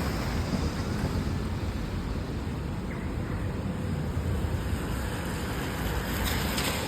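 Steady rain and wet city-street noise, with a constant low rumble underneath.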